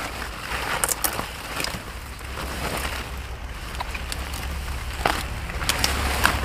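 Large broccoli leaves and stalks rustling and snapping as the plants are pushed aside and the heads cut, with several sharp cracks along the way.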